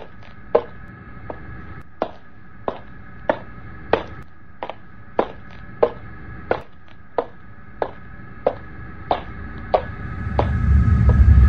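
Footsteps on a hard floor: sharp knocks at a walking pace of about one and a half steps a second, over a steady high hum. Near the end a louder low rumble swells in.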